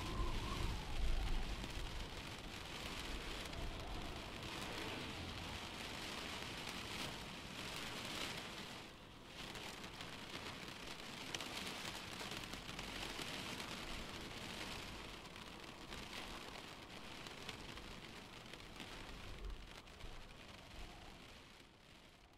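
Steady rain falling, an even hiss that dips briefly near the middle and fades away near the end.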